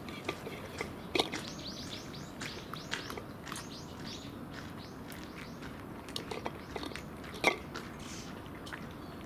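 Cats chewing food, with scattered soft crunching clicks and two sharp clicks about a second in and near the end. Over it, for a couple of seconds early on, comes a quick run of short, high bird chirps.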